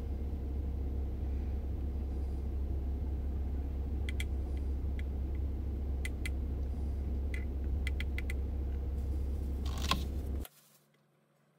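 Knife blade scraping and tapping on a cutting board as charred skin is peeled off roasted chiles: a scatter of sharp clicks over a steady low rumble. Near the end a plastic bag rustles briefly, then all sound cuts off suddenly to near silence.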